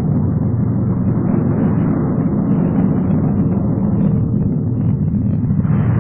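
Steady, loud low rumble from a film soundtrack sound effect.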